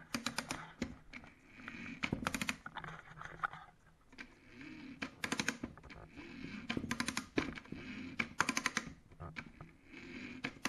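Type 89 gun camera's spring motor being wound with its side crank, the mechanism clicking in quick runs of evenly spaced clicks, one run every second or two.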